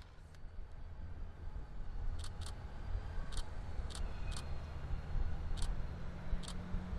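Low rumble of a diesel locomotive working at a distance, growing louder about halfway through, with eight or so sharp high clicks scattered through it.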